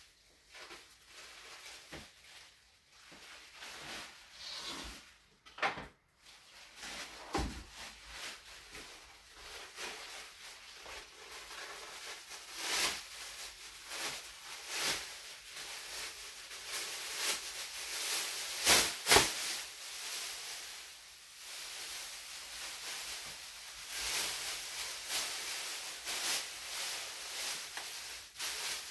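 Thin plastic sheeting rustling and crinkling as it is lifted, shaken out and draped over clay. The sound is sparse at first and gets busier about halfway through, with the sharpest crackle a little past the middle.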